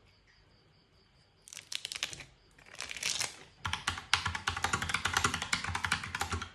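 Typing on a Logitech POP Keys mechanical keyboard: a couple of short bursts of key clicks starting about a second and a half in, then fast continuous typing through the second half.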